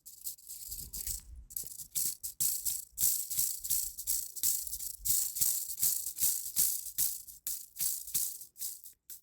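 A dry rattle, like a shaker, shaken in quick, irregular strokes with a hissing sound.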